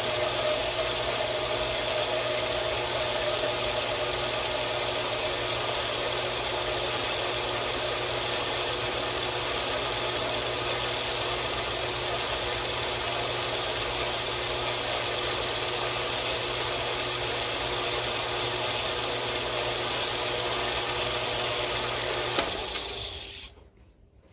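Power hacksaw running and cutting through a thick round metal bar: a steady mechanical sawing noise over a low motor hum, which cuts off about a second before the end.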